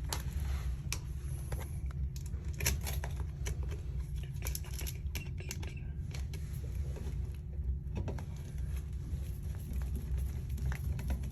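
Scattered small clicks and scrapes as stiff electrical wires and a GFCI outlet are pushed back into a wall electrical box, over a steady low rumble.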